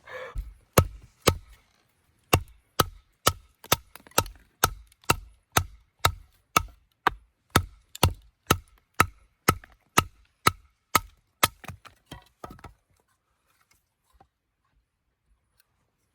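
Wood being chopped with a blade: a steady run of sharp strikes, about two a second, each with a faint metallic ring. The strikes stop about three-quarters of the way through.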